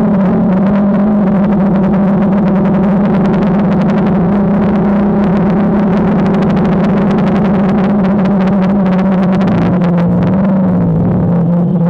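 DJI Phantom quadcopter's motors and propellers humming steadily at one pitch, with a brief dip in pitch near the end.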